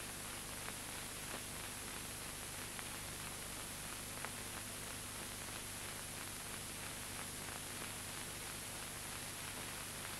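Background noise of an old film soundtrack with no narration: a steady hiss with a faint low hum and a few faint clicks.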